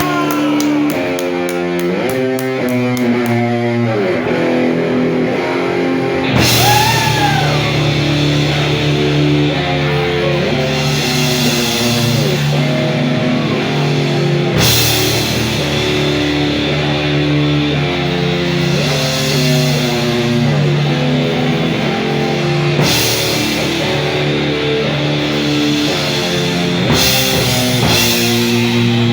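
Heavy rock band playing: an electric guitar riff on its own, then drums and bass come in about six seconds in and the full band drives the riff on.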